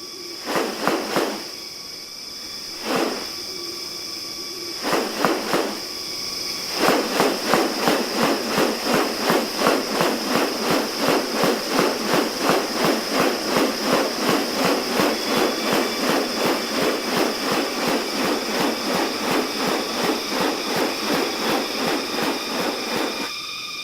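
Rainforest sound: a steady high-pitched drone of several even tones, typical of insects. A few short separate pulses come in the first seconds, then from about seven seconds in an even, rapid pulsing of about two or three beats a second.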